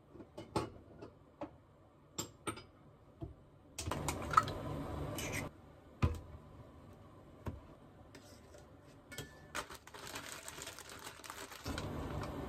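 Kitchen handling sounds: small clicks and knocks of things set down on a stainless-steel counter, with a sharp knock about halfway through as a soy sauce bottle is put down. Near the end comes a rustling of a plastic bag of frozen chopped green onion.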